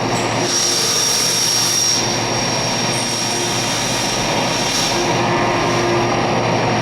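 Hurco BMC 4020 vertical machining center running under power: a steady mechanical hiss and hum with a thin, constant high whine.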